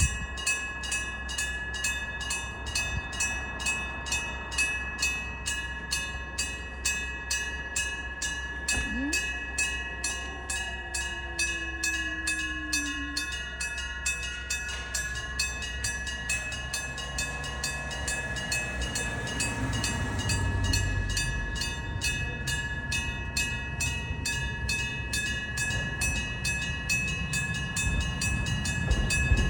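Electric-bell railroad crossing alarm striking its gong in a fast, even, ringing clang. In the second half an ex-Tokyo Metro 03 series electric train rumbles past, loudest about two-thirds of the way in.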